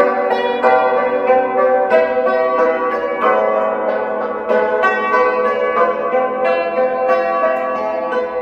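Yangqin (Chinese hammered dulcimer) being played: a melody of quickly struck metal strings, several notes a second, each note ringing on under the next.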